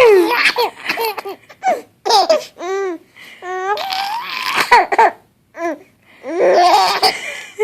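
Baby laughing in a string of short, high-pitched giggles with brief pauses between them.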